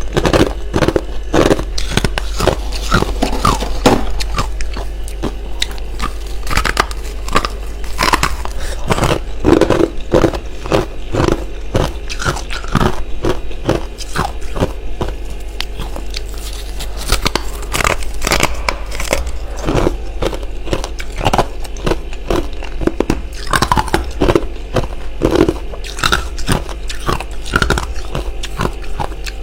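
A person biting and chewing freezer frost: many sharp crackling crunches in quick, irregular succession.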